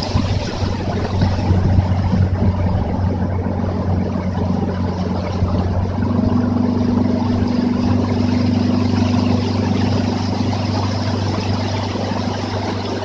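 Yamaha F60F four-stroke outboard motor running steadily with a low hum. A rushing hiss of wind and water is strong at first and dies down after a couple of seconds, and a second, slightly higher engine tone joins about halfway through.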